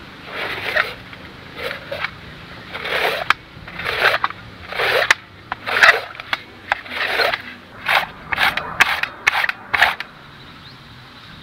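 Raw green papaya being grated on a stainless steel box grater: rasping strokes, about one a second at first, then quicker, stopping shortly before the end.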